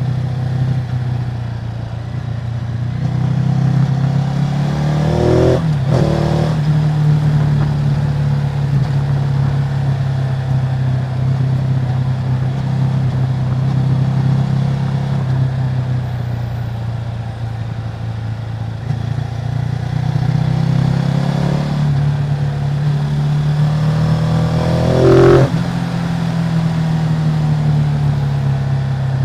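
Ducati Multistrada 950's L-twin engine running through its stock exhaust at a steady note. Twice, about five seconds in and again near the end, the revs climb briefly and break off sharply.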